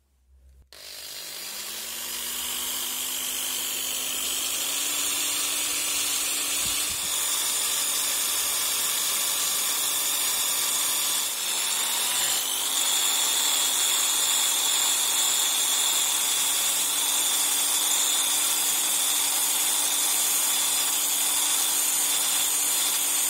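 Electric drill spinning a wire brush disc against the steel head of a masonry hammer, scrubbing off hardened dirt. The motor spins up about a second in, drops and spins back up about halfway through, and otherwise runs steadily under the harsh hiss of the wire bristles on the metal.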